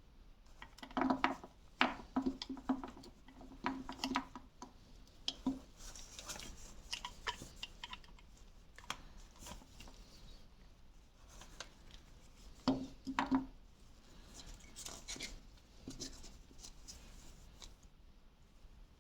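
Hands working on a small toy car's parts: scattered faint clicks, taps and light scrapes, with clusters of louder knocks about a second in and again around two-thirds of the way through.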